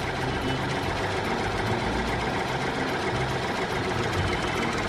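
Tractor engine idling steadily, a dubbed sound effect rather than noise from the plastic toy itself.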